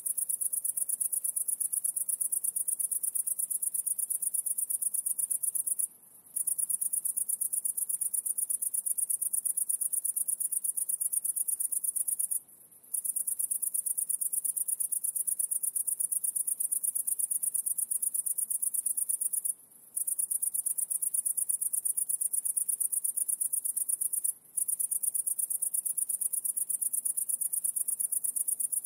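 A high-pitched, rapidly pulsing insect trill, continuous for several seconds at a time and broken by short pauses four times.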